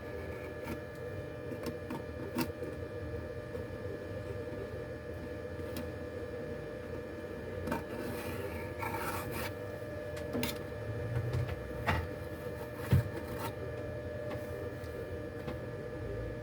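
Light scraping and rubbing with scattered small clicks, as of hand tools working on a smartphone, over a steady hum; one sharper click stands out near the end.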